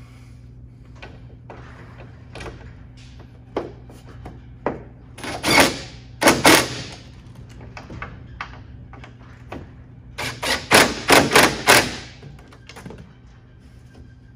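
Ratchet wrench working the nuts on a hood strut mounting bracket: a few light clanks, then two loud ratcheting runs about halfway in and a quicker series of about five near the end.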